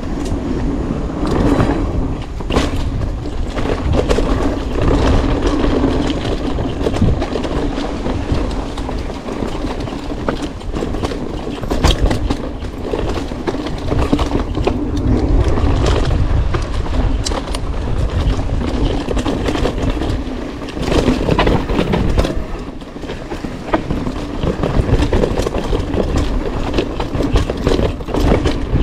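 Specialized Stumpjumper mountain bike ridden along a dirt trail on freshly fitted tubeless tyres: continuous tyre rolling noise with a constant rattle of clicks and knocks from the bike over rough ground.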